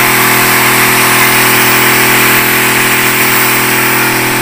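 Battery-powered agricultural sprayer pump running with a steady hum while the brass spray-gun nozzle hisses out a fine mist under pressure.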